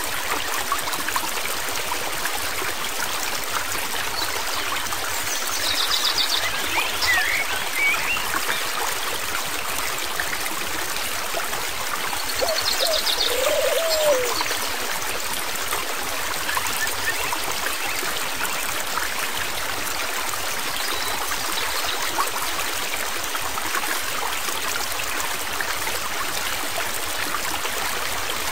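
Flowing stream water, a steady rushing, with a few brief high chirps about six and thirteen seconds in.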